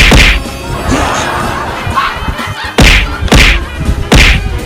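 Heavy thudding hit sound effects, four in all: one at the start and three in quick succession in the second half, over background music.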